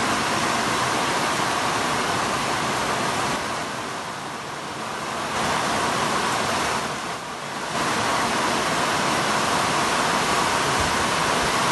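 Heavy rain pouring down, a dense steady hiss that dips a little twice.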